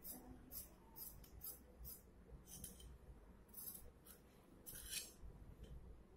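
Tailor's scissors cutting a strip of cloth in a run of short snips, about ten at an uneven pace, faint.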